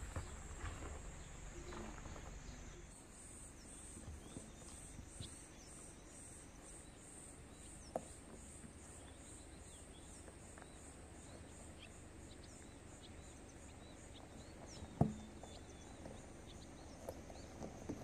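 Insects chirping in a steady high chorus that pulses about twice a second. There is a low rumble in the first few seconds and a single sharp knock about 15 seconds in.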